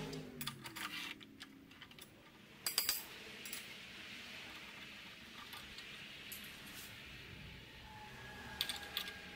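Light metallic clicks and clinks of metal tools and parts being handled at a milling machine vise, with a louder clack about three seconds in and a few more clicks near the end.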